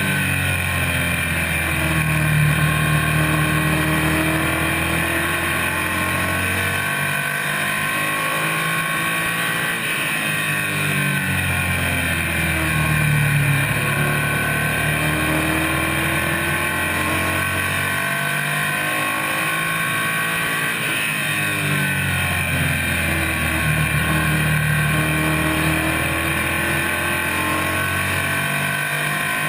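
Stock car racing engine heard from inside the cockpit at full race pace. Its pitch climbs as it accelerates and falls as it lifts off, three times over, about every eleven seconds, once for each lap of the oval.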